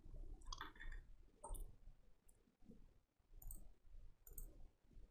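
Faint computer mouse clicks, a few spaced about a second apart, over near silence.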